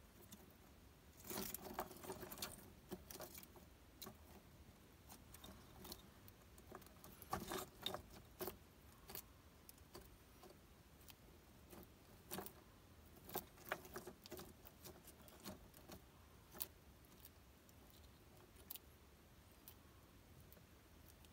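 Faint, scattered clicks and scratchy rustles in short clusters, from an ocellated lizard scrambling over loose pine bark chunks in its terrarium while grabbing and eating a dubia roach.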